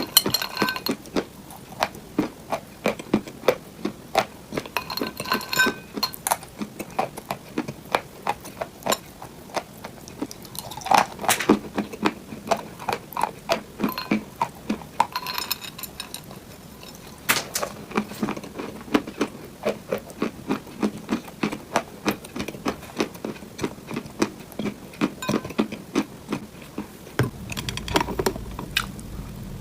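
ASMR fake-eating crunch sounds: sharp, crisp crunches and clicks, a few per second in an uneven rhythm, with a short pause about two-thirds of the way through.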